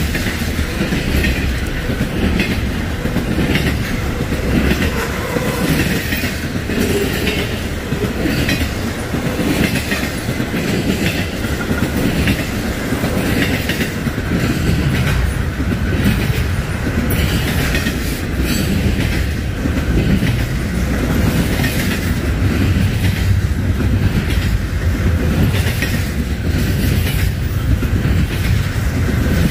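Freight train cars rolling past close by: a steady heavy rumble with the regular clickety-clack of wheels over rail joints.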